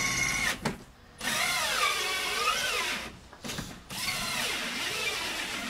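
Power drill motor whirring in three bursts, its pitch wavering up and down, with short breaks about half a second and three seconds in.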